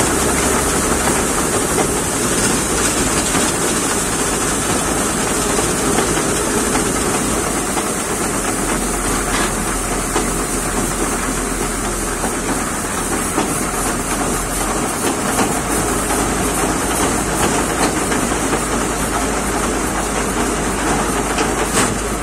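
Tractor-drawn trailer loaded with sunflower seeds being hauled slowly, the engine running steadily under a constant high hiss and rattle.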